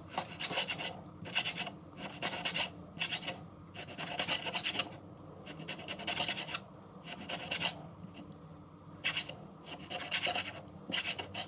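Kitchen knife cutting raw pork on a wooden chopping board: many short sawing strokes of the blade through the meat and against the board, unevenly spaced, about one or two a second.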